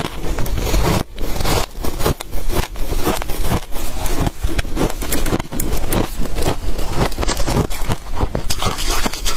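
Frost being bitten and chewed close to the microphone: a rapid, irregular run of crisp crunches, several a second, with a brief pause about a second in.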